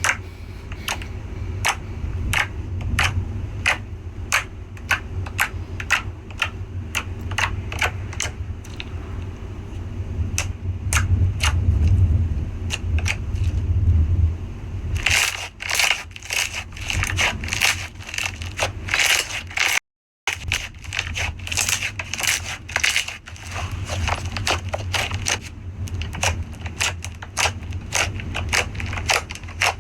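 Slime being squeezed and pressed by hand, giving a run of crackling clicks and pops, sparse at first and denser in the second half, with a brief dropout to silence about twenty seconds in.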